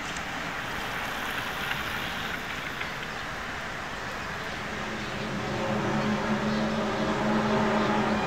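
Low, steady droning hum with several overtones rising out of a rushing background noise about two-thirds of the way through and growing louder, reported as a strange sound in the sky.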